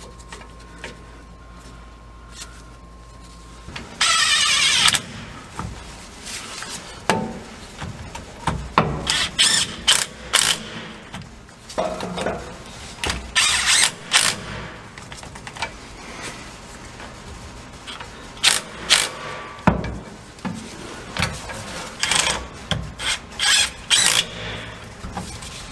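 Cordless power tool running in the bolts that fasten a driveshaft U-joint to its yoke: one longer spin about four seconds in, then many short bursts with clicks of metal parts between.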